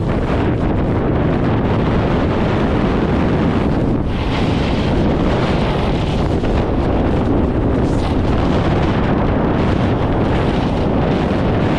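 Heavy wind buffeting the microphone while riding fast downhill: a steady, loud rumbling rush.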